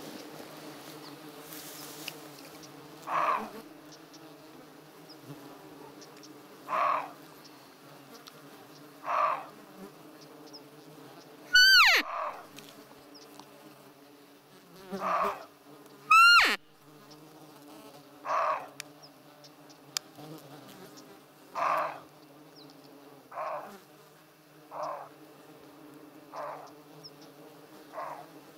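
Roe deer barking in alarm: a short hoarse bark every two to three seconds, over a steady buzz of flies and other insects close by. Twice, midway through, a loud call slides steeply down in pitch.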